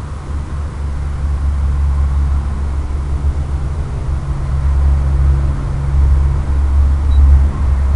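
Steady low rumble with a light hiss: wind and propeller noise from a quadcopter in flight, picked up onboard and carried over the analog video link.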